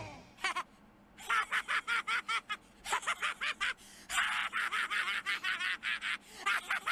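Stifled, high-pitched giggling: quick runs of snickers starting about a second in, with brief breaks between them.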